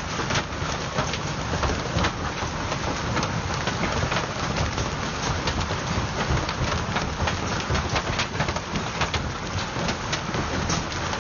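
Hail falling hard: a dense patter of hailstones striking the ground and a parked car, with many sharp individual cracks among the steady hiss.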